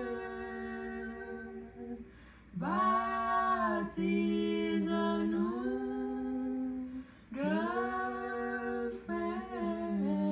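A single voice humming a slow, unaccompanied melody in long held notes, breaking off briefly about two seconds and again about seven seconds in.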